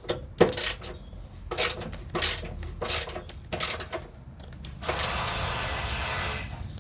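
Hand ratchet wrench clicking in a few short strokes, then one longer run of clicks near the end, as the rear engine mount bolts are snugged up by hand.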